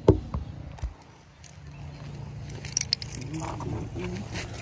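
A couple of sharp knocks from the phone being handled and set down, then light metallic jingling and clicks, like keys being handled. The pit bike's engine is not running.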